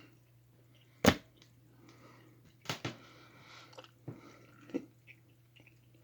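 Mouth chewing a dense, sticky gummy candy close to the microphone: wet smacks and clicks, the sharpest about a second in, with softer squelching chews between.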